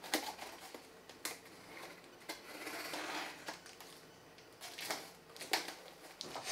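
Folding knife cutting the packing tape on a cardboard shipping box: sharp clicks and taps of the blade on the cardboard, about one a second, with a longer scraping cut about three seconds in.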